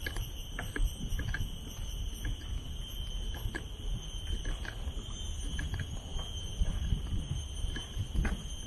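Footsteps and low wind rumble on the microphone during a walk, under a steady high-pitched drone that runs without a break, with scattered faint ticks.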